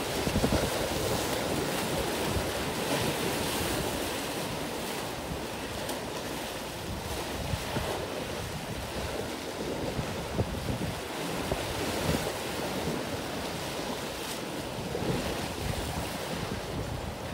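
Wind buffeting the microphone in gusts over the steady wash of choppy sea water and surf.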